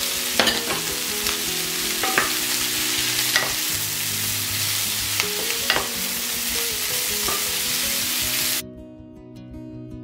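Sliced mushrooms, peppers and onion sizzling in hot olive oil in a pot while being stirred with a wooden spoon, the spoon scraping and knocking against the pan every second or two. Near the end the sizzle cuts off suddenly, leaving soft acoustic guitar music.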